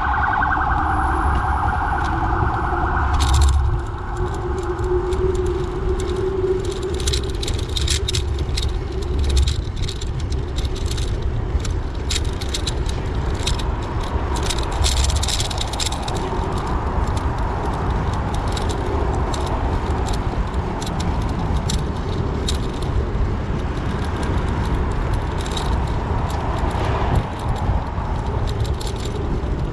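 Busy road-traffic noise with a steady low rumble and frequent light rattling clicks. A warbling alarm tone sounds over it for the first few seconds, then cuts off.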